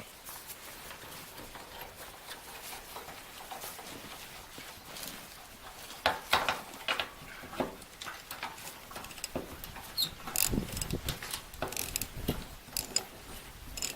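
Socket ratchet clicking and tools knocking on metal while the nuts on the ends of a wheelbarrow axle are worked loose; the first half is quiet, and the clicking and knocks start about halfway through.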